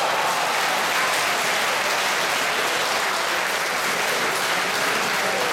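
A crowd of spectators applauding steadily for a point just won in a table tennis rally.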